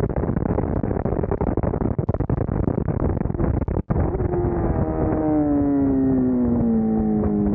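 Sport motorcycle at speed on a race track, heard from an onboard camera as a rush of wind and engine noise muffled by heavy noise reduction. There is a brief dropout about four seconds in. After it the engine note falls steadily as the bike slows for a corner.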